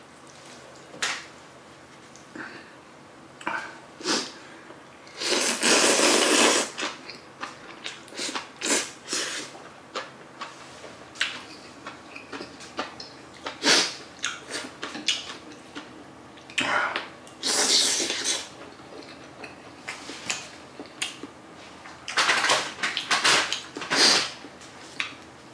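Close-miked eating of spicy jajang ramen: three long noodle slurps, about five, seventeen and twenty-two seconds in, with many short clicks of utensils against the bowl in between.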